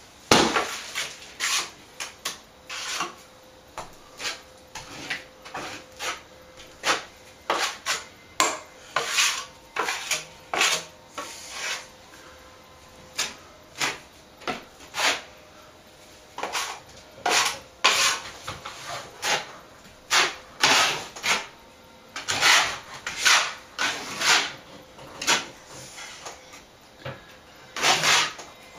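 Broad plastering knife scraping across a ceiling patch as a fresh coat of plaster is spread and smoothed, in repeated short strokes about one or two a second. The strokes pause briefly near the middle.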